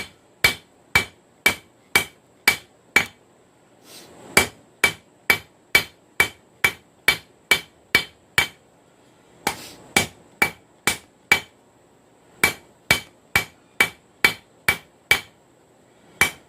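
Blacksmith's hammer striking a hot railroad rail end on an anvil, about two blows a second in runs with short pauses, each blow with a bright ring. This is the drawing-out of a taper on the end of the rail, toward the point of a stake anvil's bick.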